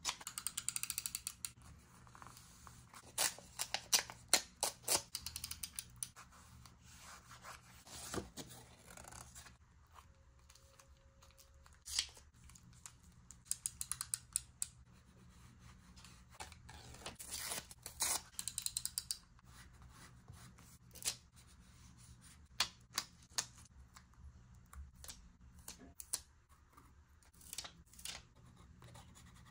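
Scissors cutting paper: scattered single snips and quick runs of snips, with quieter handling sounds in between.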